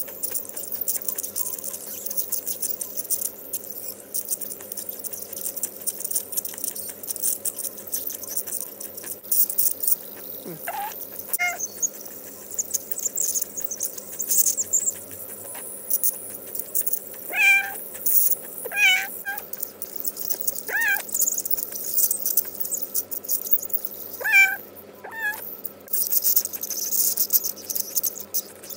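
An awake, unanaesthetised 12-year-old cat meowing in about seven short calls, the first some ten seconds in and most in the second half, while an ultrasonic dental scaler hisses and crackles steadily against its teeth.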